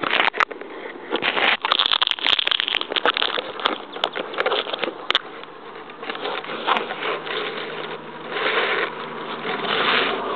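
Handling noise on a phone microphone held against clothing: a dense rustle and scrape of cloth and fingers rubbing over the mic, broken by many sharp crackling clicks, with the loudness surging and dipping.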